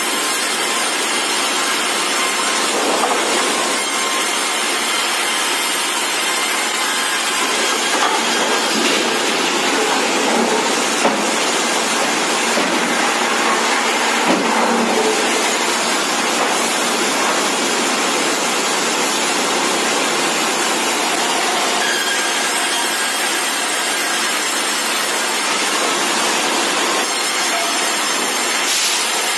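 Sawmill log-processing line running: saws cutting through a log as it is fed on roller conveyors, a loud steady noise with a couple of brief knocks.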